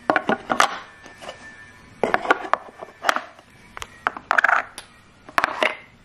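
Painted wooden toy blocks knocking and clacking against each other and the wooden box as they are packed in one by one, in several short bursts of sharp knocks.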